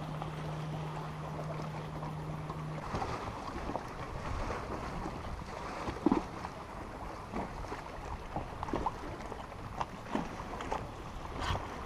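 Wind buffeting the microphone and choppy lake water lapping against an aluminium bass boat's hull, with scattered small knocks and splashes. A low steady hum stops about three seconds in.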